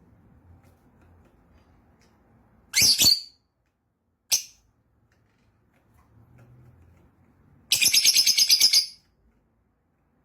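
Yellow lovebird calling: a shrill half-second call about three seconds in, a single short chirp a second later, and near the end a rapid run of chirps lasting just over a second.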